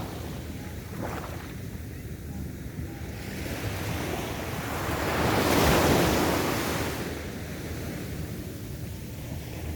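Sea surf on a beach: a wave builds, breaks and washes up, loudest about halfway through, then draws back into the steady low wash of the surf.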